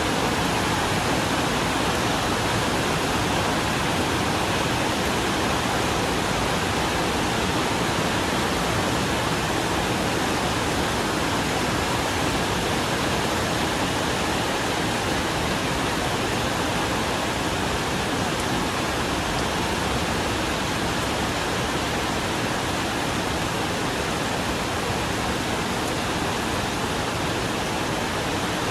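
Steady rain falling on and around a corrugated iron porch roof: a dense, even hiss of many drops with no separate hits standing out.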